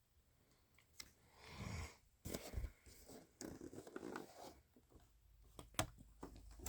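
Faint handling of small toy packaging: intermittent rustling of plastic and paper wrappers with a few sharp clicks, one about a second in and one near the end.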